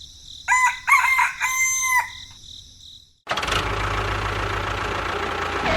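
A rooster crowing: a few short notes, then a longer held one. About three seconds in, after a brief cut to silence, a steady running noise with a low hum starts.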